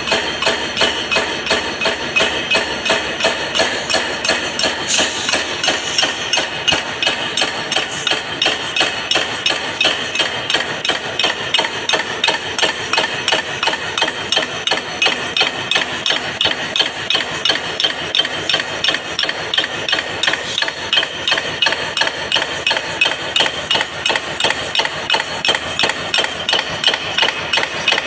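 Rapid, regular strikes like hammer blows, about three to four a second, keeping an even beat throughout.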